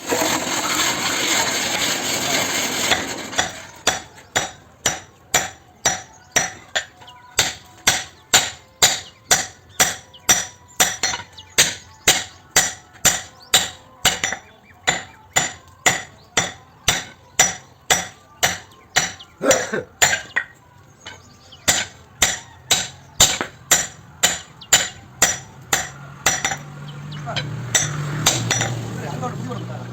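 Hammer blows on hot metal while a billhook blade is forged: a long, even run of sharp strikes, about two a second. A loud rushing noise fills the first three seconds, and a low hum comes in near the end.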